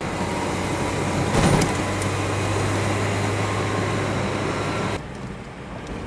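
Car driving, heard from inside the cabin: a steady low engine drone with road and wind noise, and a brief louder rush about a second and a half in. About five seconds in the sound drops to a quieter, steady road hum.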